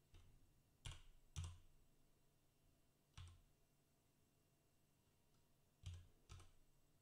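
Faint, scattered keystrokes on a computer keyboard: about six sharp taps at irregular intervals, two of them in quick pairs about half a second apart.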